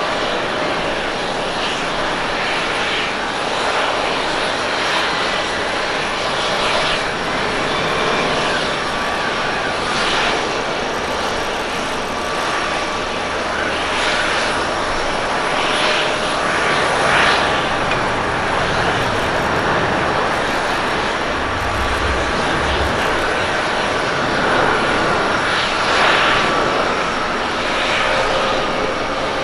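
Boeing 787-8 Dreamliner with Rolls-Royce Trent 1000 engines landing: a steady jet roar through the final approach and touchdown, with a low rumble partway through and a rising tone near the end as it rolls out with spoilers raised.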